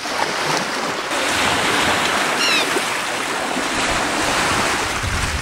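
Waves on the sea and wind make a steady rush, with one short high chirp falling in pitch about two and a half seconds in, from one of the seabirds flying overhead.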